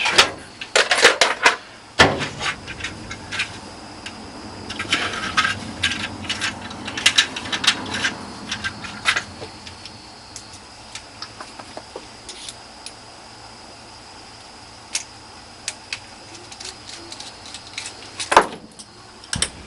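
Small metal clicks and rattles of an opened padlock being handled. They come thick for the first nine seconds, then thin to scattered ticks, with two louder knocks near the end.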